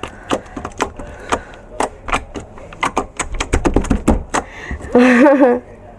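Glossy slime being worked by hand, giving an irregular run of sharp popping clicks from air bubbles, thickest a little past the middle. A short voiced sound comes about five seconds in.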